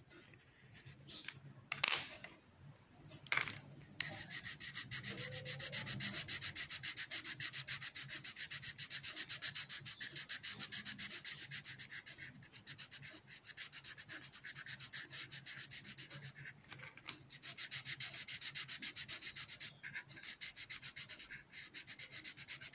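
Coloured pencil scratching across paper in fast back-and-forth shading strokes, several a second, with a few brief pauses. Before the shading begins, two short knocks come about two and three and a half seconds in.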